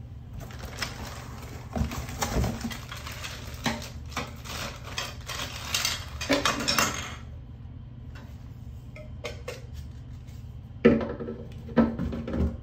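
Plastic dog-bowl parts and their clear plastic packaging being handled: several seconds of dense rustling and clatter, then a quieter stretch with scattered clicks. Near the end come two sharp knocks as a plastic stand is pushed into the bowl base.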